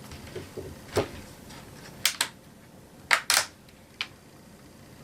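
Handling noises as a laptop is moved about on a work surface: about half a dozen sharp knocks and clacks, two of them in quick pairs.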